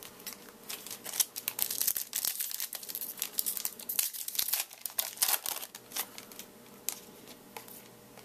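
Trading-card pack wrapper being torn open and crinkled by hand, a burst of crackling that thins out near the end.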